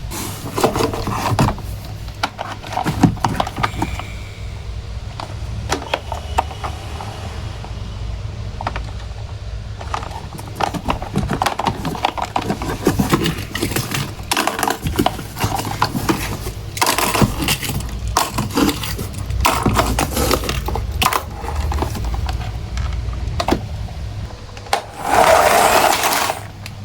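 Small plastic toy vehicles and their packaging being handled: irregular clicks, clatters and scrapes, with a louder rustling noise about a second long near the end.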